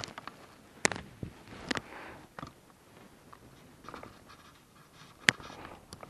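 Close handling noise as hands work a small caught fish right by the microphone: a few sharp clicks, the loudest near the end, with soft rustling between.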